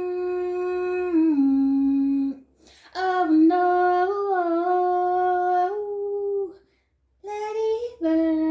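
A woman humming long held notes with no accompaniment, in three phrases. Each phrase steps or slides between a few pitches, with brief breaths between them about two and a half and seven seconds in.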